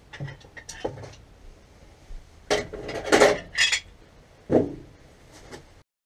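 Metal hand tools clinking and knocking: a few scattered strikes, then a busier cluster of clanks about two and a half seconds in and one more knock a second later.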